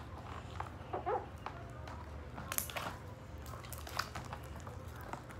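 Homemade slime being kneaded and pulled apart by hand, giving scattered sticky clicks and snaps over a steady low hum. A brief voice-like sound comes about a second in.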